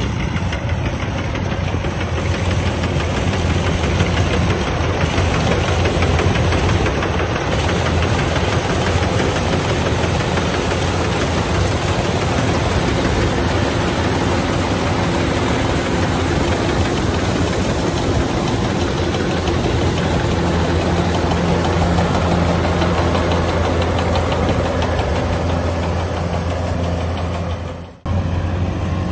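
Kubota DC-105X combine harvester running steadily under load as it cuts and threshes rice, its diesel engine and threshing machinery making a dense, continuous low drone. The sound breaks off abruptly for a moment near the end.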